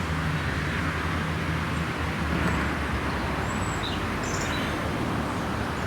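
Steady background traffic noise, a low even hum of road vehicles with a few faint high chirps about midway.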